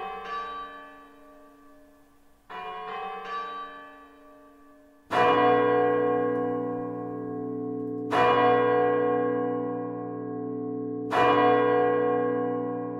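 A large church-type bell struck three times, about three seconds apart, each loud stroke ringing on into the next: the great bell tolling the strokes of midnight. About two and a half seconds in, before the first stroke, comes a softer quick group of lighter bell strikes.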